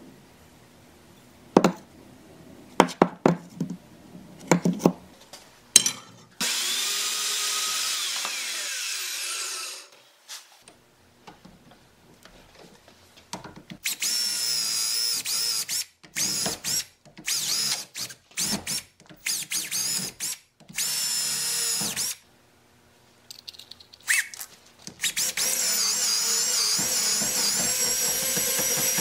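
First a few sharp knocks, then a cordless drill boring into the old wooden handle stuck in a hatchet head's eye to free the head. It runs once for a few seconds, then in a string of short on-off bursts, then steadily near the end, its high whine wavering as the bit bites into the wood.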